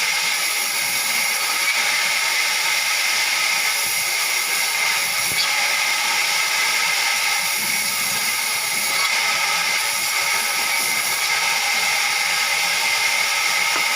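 Power saw machinery running steadily, giving a continuous high whine over a hiss.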